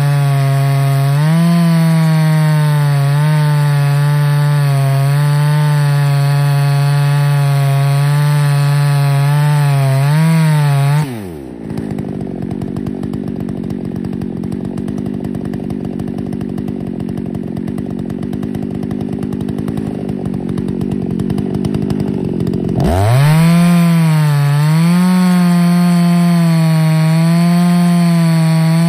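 Ported Husqvarna 288XP two-stroke chainsaw running at full throttle under load in an Alaskan mill, ripping a white oak log, its pitch wavering as the chain bites. About 11 seconds in the throttle is released and the engine drops to a lower, quieter run for about 12 seconds. It then revs back up and goes on cutting.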